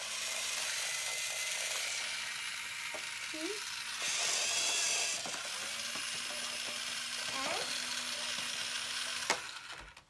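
Battery-powered toy power tool from a kids' construction playset whirring steadily, then switched off with a click about nine seconds in.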